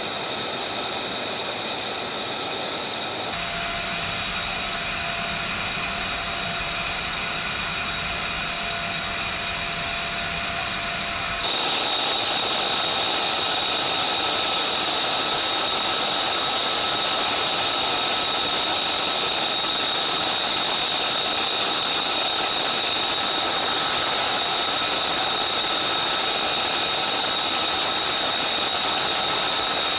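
Steady jet engine noise with a high-pitched whine, jumping abruptly louder about eleven seconds in.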